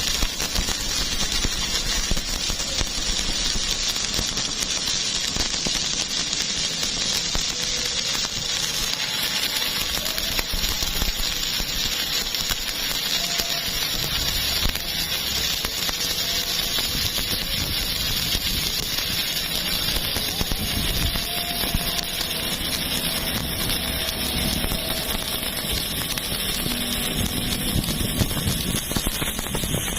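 Electric welding arc crackling and hissing steadily as a flat-position (1F) fillet weld is run on steel plate.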